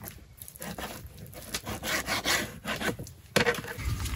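Rough scraping and rustling from hands at food preparation: irregular rubbing strokes, busiest in the middle, then a sharper, louder rustle near the end.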